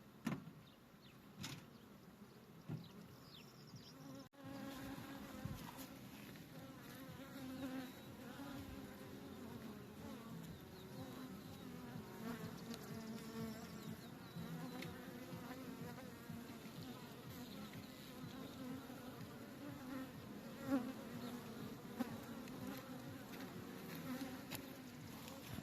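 Honeybees buzzing around an open beehive: a steady hum of many wings whose pitch wavers slightly. The buzz becomes fuller after a brief dropout about four seconds in.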